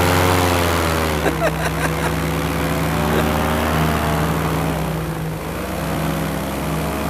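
Paramotor engine and propeller running hard in flight. Its pitch dips and comes back up twice as the throttle is eased and reopened, over a steady low drone.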